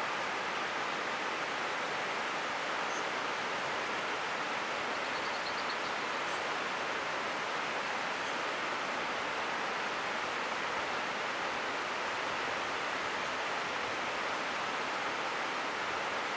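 River rapids rushing over boulders: a steady, even roar of whitewater.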